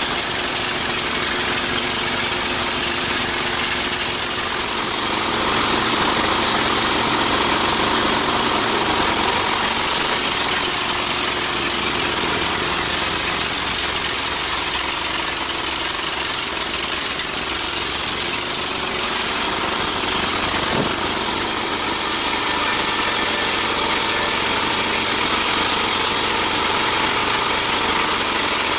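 Sawmill machinery running steadily: a motor's drone with a constant hiss over it. It grows a little louder about five seconds in.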